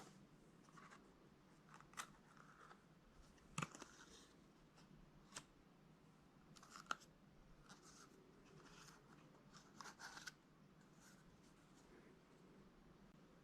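Faint handling noises: a few scattered light clicks and short soft rustles, as of a smartwatch and its packaging being handled.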